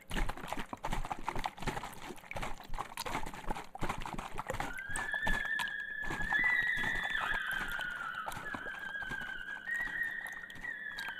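Animation soundtrack: a rapid, irregular run of clicks and knocks, then from about four and a half seconds in a high, wavering tone that slides between pitches.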